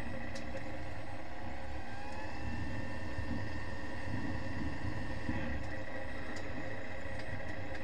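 Aeroprakt light aircraft's engine and propeller running steadily at low power while taxiing, heard from inside the cockpit as an even drone.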